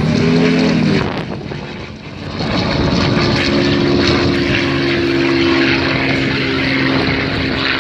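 Two propeller-driven aerobatic trainers, including a Yak-52 with its radial engine, flying past in formation: a loud engine drone whose pitch drops as they pass about a second in, easing briefly, then loud and steady again.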